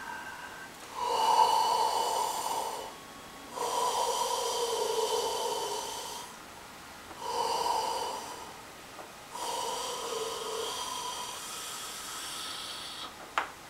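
A person taking deep audible breaths in a yogic yawning-and-breathing exercise: four long breaths, in two pairs of a shorter breath followed by a longer one. There is a single sharp click near the end.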